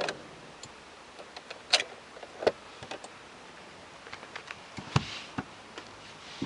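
Irregular light clicks and taps with a few sharper knocks, the sharpest about two seconds in and about five seconds in.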